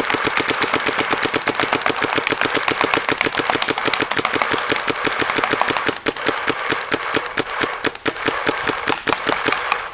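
Planet Eclipse Gmek mechanical paintball marker firing a fast, steady string of compressed-air shots, with brief breaks about six and eight seconds in.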